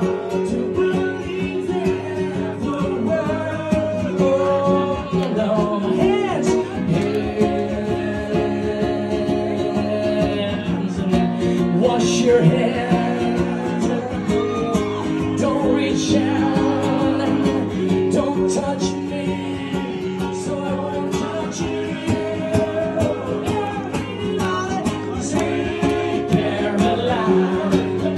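Live music: a man singing while strumming an acoustic guitar with a steady rhythm.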